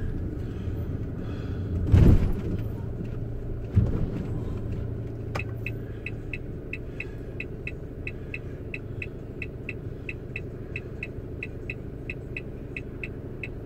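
Truck engine idling with a heavy thump about two seconds in and a smaller knock just before four seconds. From about six seconds on, an electronic turn-signal indicator ticks evenly, about three ticks a second.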